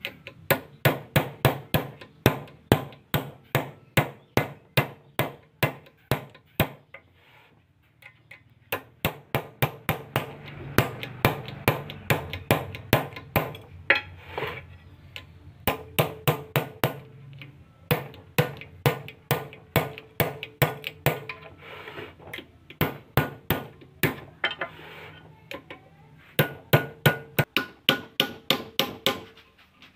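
Hammer striking a punch on a steel tie rod end clamped in a bench vise: rapid metallic blows at about three to four a second, pausing briefly about a quarter of the way through. The blows are part of reworking a loose, worn tie rod end.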